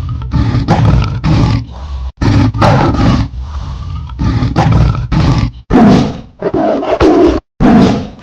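Tiger roaring and growling loudly: a run of short, rough roars, each under a second, with brief breaks between them.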